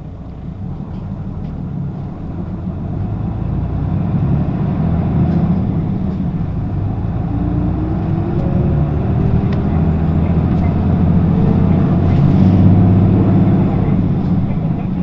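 Diesel engine of a Hino city bus (LKG-KV234N3, 6-speed manual) running under load as the bus accelerates. The engine note climbs and grows louder, then eases off near the end.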